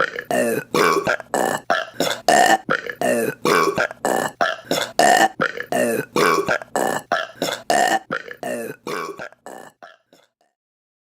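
A rapid run of short burps, three to four a second, in a sequence that repeats over and over like an edited loop, fading out about ten seconds in.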